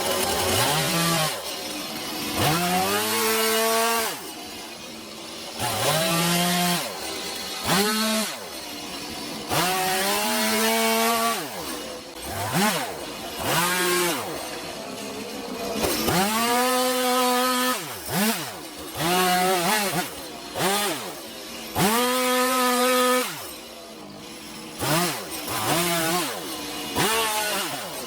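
Gas chainsaw revving in repeated short bursts while carving into a wooden block, the engine pitch climbing with each squeeze of the throttle and dropping back toward idle between cuts.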